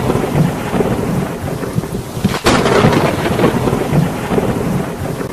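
Thunderstorm sound effect in a channel intro: a loud rush of rain with a sharp thunder crack about two and a half seconds in.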